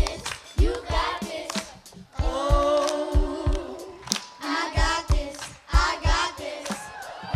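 Children's choir singing a cappella, with held, chord-like notes over a beat kept by hand claps.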